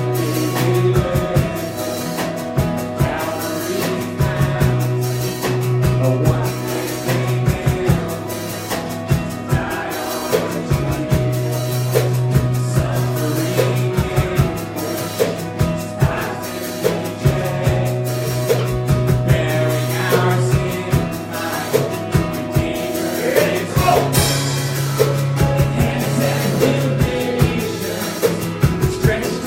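Church worship band playing a song: a drum kit keeps a steady beat over sustained bass notes and other instruments, with some singing.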